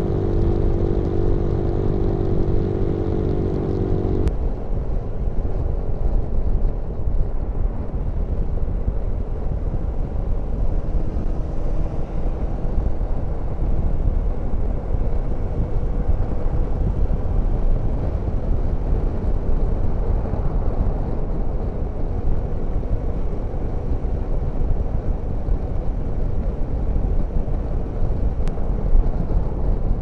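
Motorcycle riding at a steady cruise: for the first four seconds the even engine note of a CCM Spitfire single. After a sudden cut, the rest is steady wind and road noise with the Suzuki V-Strom's engine faint underneath.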